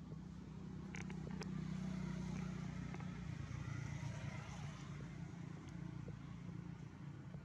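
A motor engine running steadily, growing louder about a second in and easing off again after about five seconds. A couple of faint sharp clicks sound near the start.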